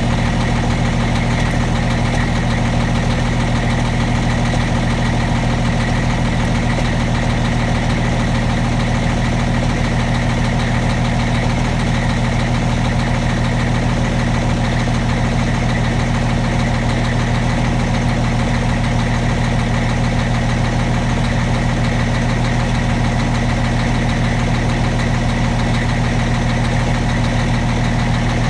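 Caterpillar 3176B inline-six diesel in a semi truck idling steadily through its chrome stacks after a cold start.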